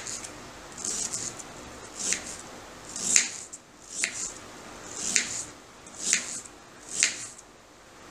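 Kitchen knife chopping onion on a plastic cutting board, a crisp slice and tap about once a second, seven strokes in a steady rhythm.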